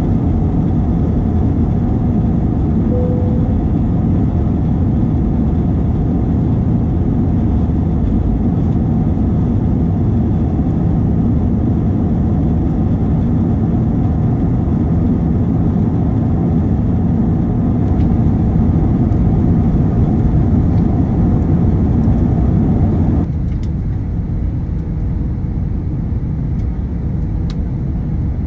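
Jet airliner cabin noise: the engines and rushing air make a steady, loud low rumble, at first under climb power just after takeoff. About 23 seconds in it drops abruptly to a quieter, thinner rumble.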